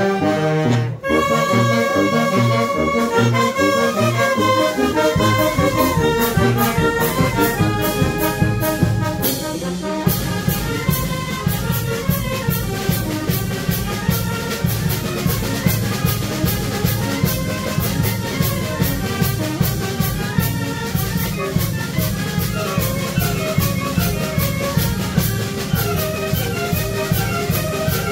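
Band music led by brass, trumpets and trombones, playing a melody. About ten seconds in, a heavier bass and an even, steady beat come in and carry on.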